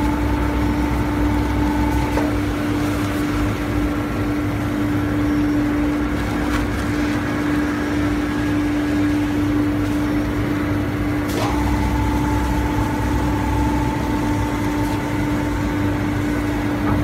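Valve bag packing machine running with a steady motor hum. A second, deeper drone with a higher whine over it runs at the start, stops about two seconds in, and comes back with a click about eleven seconds in, as the machine fills a bag.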